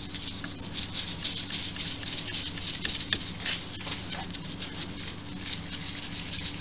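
A 1946 Boxford lathe's slide being worked by hand, with a faint, irregular scraping and rubbing of metal on its rusty, gunked-up ways; it is a bit stiffer than the top slide.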